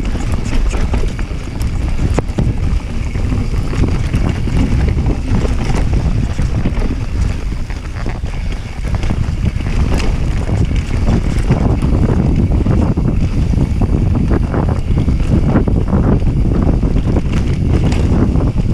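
Mountain bike riding fast down a dirt forest trail: wind buffeting the camera microphone and the tyres rumbling over the ground, with frequent sharp clicks and rattles from the bike over the bumps.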